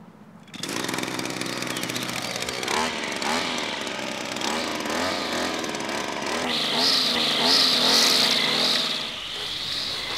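Petrol string trimmer engine catching about half a second in and running, its pitch swinging up and down as it is revved; from about six seconds in it runs at higher revs with a higher whine, easing off near the end.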